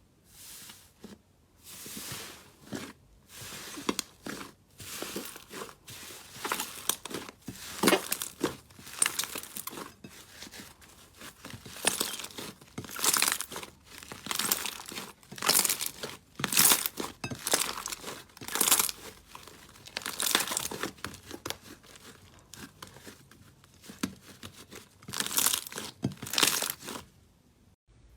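Slime being squeezed and pressed by hand close to the microphone: an irregular run of crackling, crinkling pops and squelches, growing louder from about six seconds in and pausing briefly near the end.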